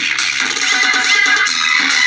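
A DJ dance song playing through a 4-ohm loudspeaker driven by a simple home-built amplifier made from an old mobile charger's parts and run from a 9 V battery. The music comes out thin, with almost no bass.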